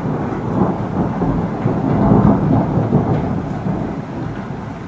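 Thunder rolling: a long low rumble that swells about two seconds in and then slowly fades.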